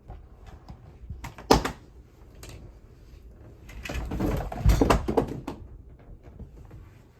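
A sharp knock about a second and a half in, then a couple of seconds of scraping and bumping, as a window is opened and someone climbs in through it.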